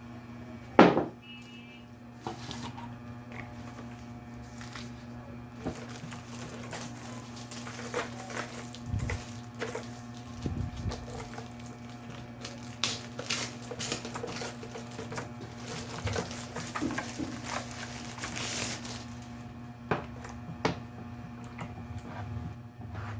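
Handling noises from the keyboard and its packaging: irregular knocks, clicks and scrapes, with one sharp knock about a second in, over a steady low hum.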